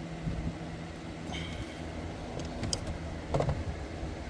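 Small plastic clicks, a squeak and a knock from hands working an ignition coil's electrical connector onto its coil in the engine bay, over a steady low hum.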